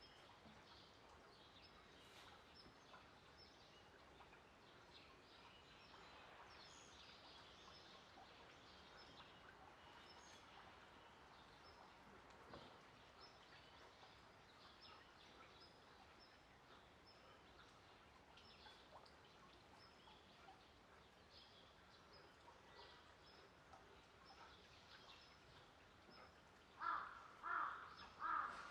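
Faint background of small birds chirping now and then, then three short, loud calls in quick succession near the end.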